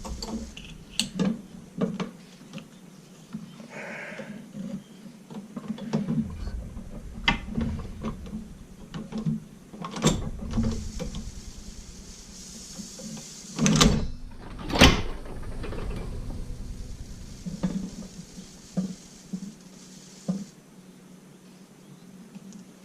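Heavy-duty Outlaw leather sewing machine stitching a strap through thick belt leather: irregular mechanical clicks and clunks, with two loud knocks about a second apart near the middle.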